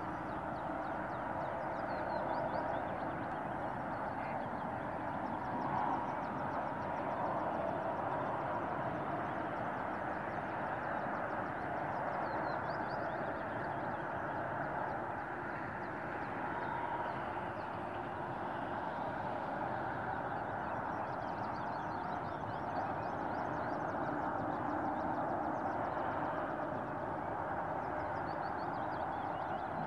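Steady rushing outdoor background noise, with faint high bird calls a few times.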